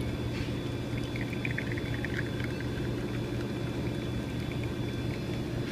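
Super-automatic espresso machine brewing a test shot: a steady hum, with a few light clicks about one to three seconds in.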